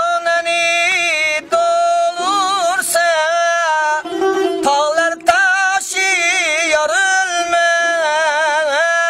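A man singing a long, ornamented vocal line without clear words, with held notes that waver in wide vibrato, over a plucked guitar with a few sharp strokes.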